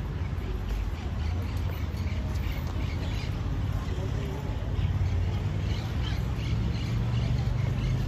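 Outdoor street ambience: a steady low rumble with faint voices of passers-by and scattered short, high bird chirps.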